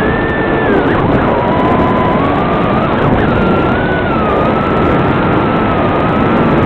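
Realacc Swallow 130 FPV racing quadcopter's brushless motors whining as it flies, the pitch rising and falling with the throttle, heard through the quad's own video-transmitter microphone under a heavy, thin-sounding hiss.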